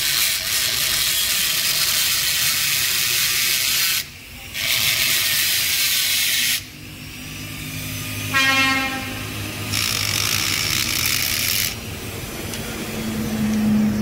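Loud hissing that switches sharply on and off in three long bursts, the first about four seconds and the next two about two seconds each, with a brief high squeak about eight seconds in.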